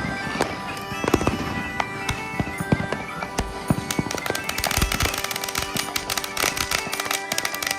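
Finale cake of consumer fireworks going off, a dense run of crackles and bangs that thickens about three seconds in. Music plays over it with steady sustained notes.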